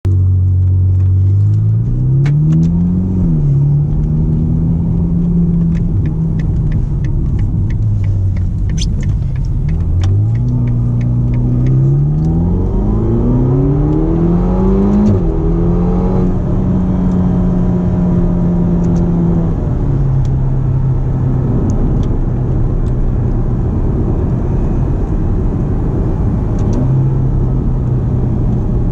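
Ferrari GTC4Lusso T's twin-turbocharged 3.9-litre V8 pulling the car along, revs rising briefly about two seconds in and again in a longer climb about ten to fifteen seconds in, then holding steady over constant tyre and road noise. A scatter of sharp ticks sounds through the first ten seconds or so.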